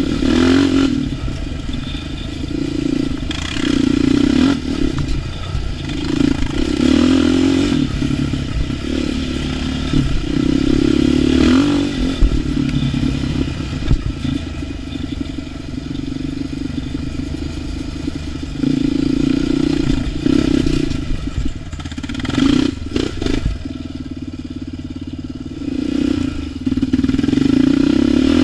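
ATV engine riding a trail, the throttle opened and eased off over and over so the engine note keeps rising and falling, with clatter and a few knocks from the machine over rough ground.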